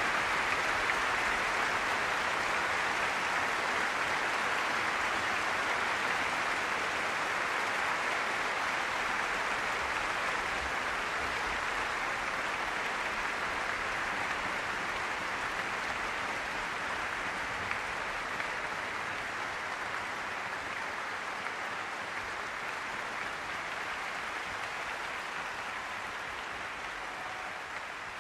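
Concert audience applauding, a steady even clapping that slowly fades.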